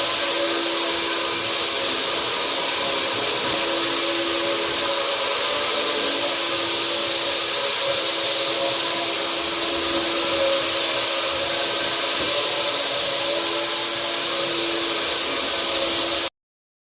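Floor-sanding machinery running steadily: a loud, even rush of motor and air with a faint hum underneath. It cuts off abruptly near the end.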